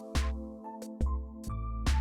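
Background music: an electronic track with synthesizer chords, a deep bass line and a regular beat.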